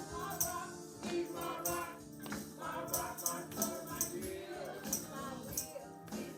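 Gospel song of praise sung by a group of voices with a tambourine keeping the beat.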